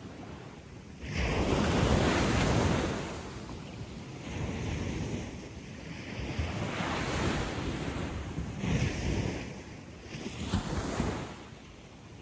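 Small ocean waves breaking and washing up a sandy beach: a loud surge about a second in, then several softer washes of surf rising and falling.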